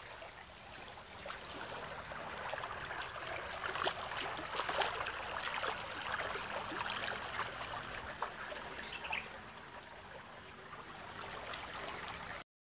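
River water running steadily over a shallow riffle, with crackles and rustles of someone moving through riverbank undergrowth and a thin steady high tone through most of it.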